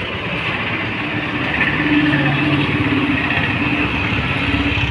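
Street traffic with a motor vehicle's engine running steadily, its hum strongest from about a second and a half in.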